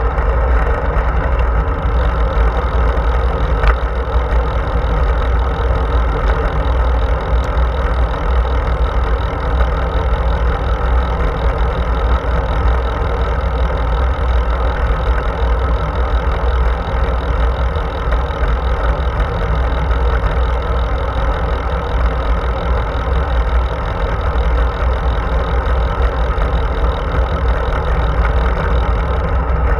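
Wind rushing over the bike-mounted camera's microphone while riding, a steady low rumble, mixed with the hum of road-bike tyres rolling on asphalt.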